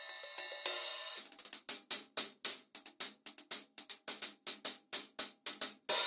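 Turco Sanctus series Turkish B20 cymbals played with drumsticks. A ringing cymbal wash is topped by a crash about half a second in. Then comes a run of short, separate hi-hat strokes at about four to five a second, and another crash near the end.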